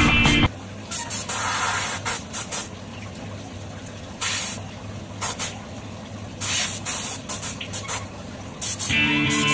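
Gravity-feed spray gun spraying paint in a string of short hissing bursts, most under a second long, over a steady low hum. Music plays at the very start and comes back near the end.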